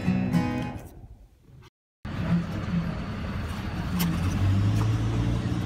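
Acoustic guitar music fades out over the first second and a half. After a moment of dead silence, steady road-traffic noise comes in, with a low engine hum.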